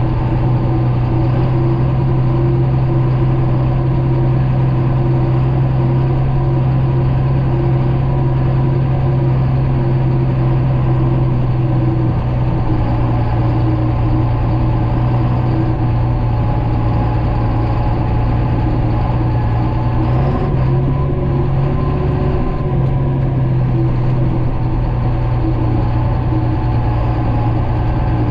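John Deere 9500 combine harvester running steadily while combining soybeans: a loud, even engine and machinery drone with a strong low hum, which wavers briefly about twenty seconds in.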